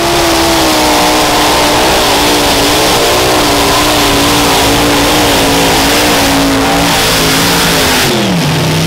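Multi-engine supercharged modified pulling tractor running at full throttle under load, its engine pitch sagging slowly through the pull and then dropping sharply near the end as the revs fall away. The announcer is pretty sure the left front engine threw its blower belt early in the pass and laid over.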